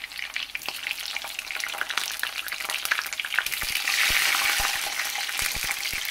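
Hot oil sizzling and crackling in a frying pan of onion and garlic. The sizzle swells louder about halfway through as halved tomatoes go into the oil, with a few soft knocks.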